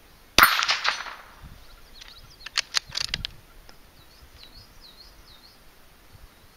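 A single shot from a Marlin Model 80 .22LR bolt-action rifle, a sharp crack about half a second in, followed about two seconds later by a quick run of metallic clicks as the bolt is worked to eject and chamber a round. Birds chirp faintly after it.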